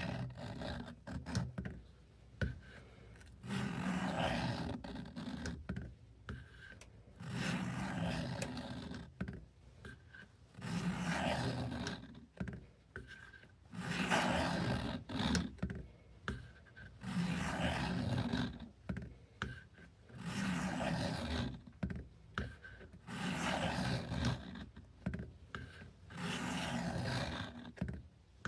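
Knife blade scraping along the coarse-grit abrasive of a Work Sharp guided sharpener at a 20-degree angle. The strokes are rasping and rhythmic, a longer stroke followed by a shorter one, the pair repeating about every three seconds.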